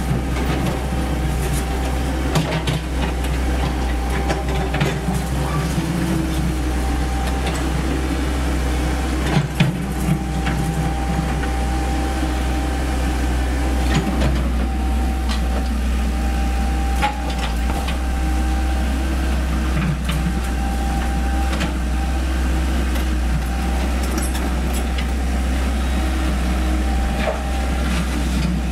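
Komatsu PC78US mini excavator's diesel engine running steadily under load, with a thin steady whine over it. Scattered knocks and crashes of brick and concrete rubble as the bucket works the debris, the loudest about a third of the way in and again about halfway.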